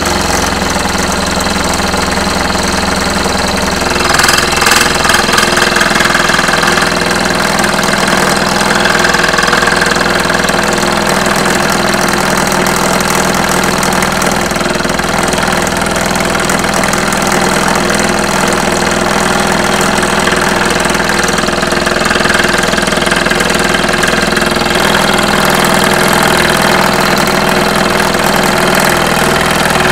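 Scroll saw running loud and steady as its blade cuts through two pieces of wood, black palm and amboyna, taped together, with the cutting a little louder a few seconds in.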